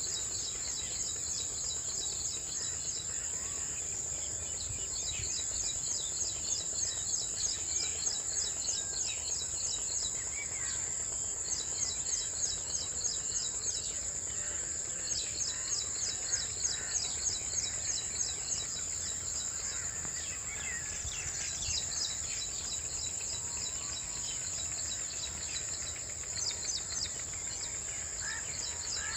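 Insects buzzing in a steady high-pitched drone, overlaid by runs of rapid, evenly pulsed chirping that start and stop every few seconds, with occasional faint bird chirps.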